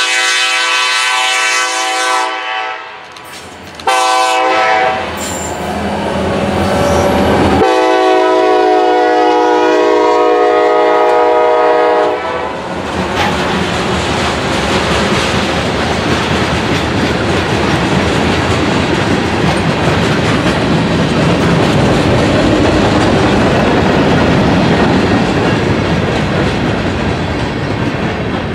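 Kansas City Southern diesel freight train sounding its chime horn: a long blast, a short one about 4 s in, and another long blast of about four seconds. The locomotives then pass and the train's cars roll by, a steady loud rumble of wheels on rail.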